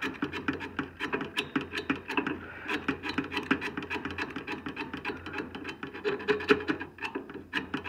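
Knife blade scraping rust and buildup off the motor shaft at the hub of an RV furnace's combustion wheel, in rapid short strokes, several a second. The rust is binding the wheel on the shaft.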